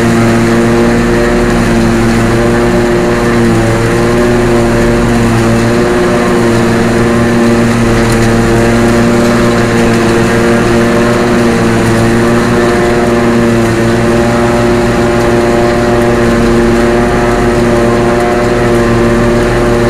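Loud, steady drone of a John Deere self-propelled forage harvester picking up and chopping a grass swath at close range, together with the engine of the tractor running beside it. The drone holds a constant hum with no change in speed.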